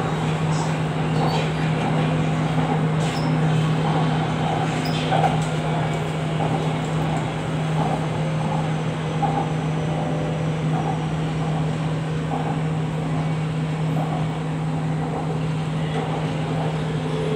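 Cabin noise of an MRT Purple Line electric metro train running along its elevated track: a steady low hum under an even rushing noise from the wheels and the moving train.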